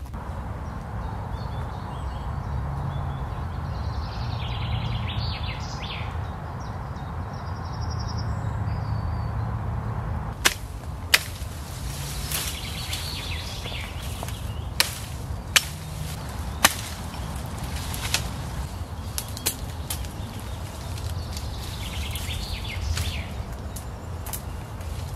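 Hatchet chopping into a thin green sapling near its base: a series of sharp, irregular knocks begins about ten seconds in, six loud ones and a few lighter. Before that there is only steady outdoor background noise.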